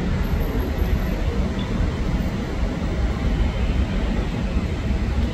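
Locomotive-hauled passenger train moving slowly through the station: a steady low rumble of wheels on the rails.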